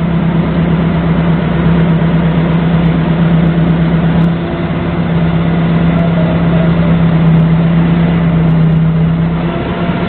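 Doosan 4.5-tonne forklift's engine running steadily under the driver's seat while the truck moves its load, a constant low hum that eases slightly about four seconds in.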